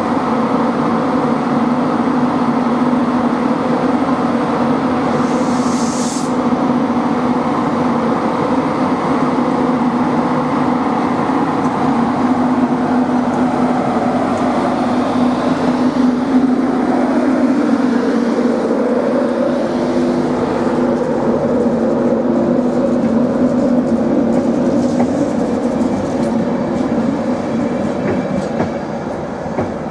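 Class 91 electric locomotive pulling its train out of the platform: a steady electric hum, then a tone that rises in pitch from a little past the halfway point as it picks up speed. A brief hiss about six seconds in.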